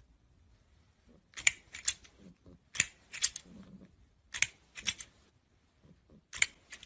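Plastic snapping-crocodile toy clacking its jaws shut, sharp plastic clicks in quick groups of two or three about every second and a half.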